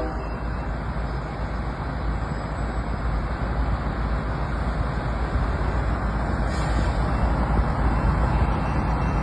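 Freight train rolling past: a steady, dense rumbling noise with no horn.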